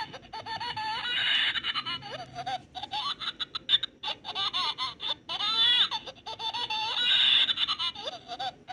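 Baby laughter sound effect played through a small homemade amplifier and speaker: high-pitched giggles and belly laughs in repeated bursts.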